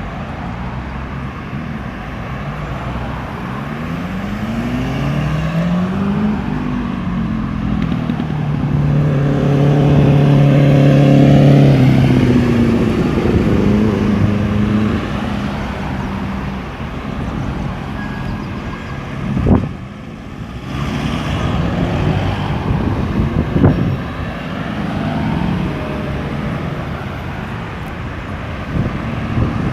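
Road traffic at a roundabout. A vehicle's engine climbs in pitch twice as it accelerates, then passes loudest about ten seconds in, with two sharp knocks later on.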